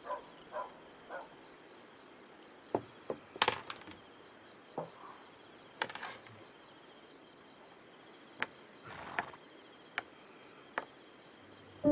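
Crickets chirping steadily in a high, even pulse of about four chirps a second. A few sharp clicks sound over them, the loudest about three and a half seconds in.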